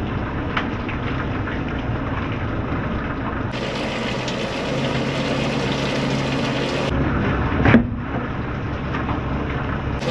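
Fishing boat's engine running steadily under water splashing and trickling as a wet, weedy net is drawn up over the net hauler, with scattered small knocks. One louder knock comes near the end.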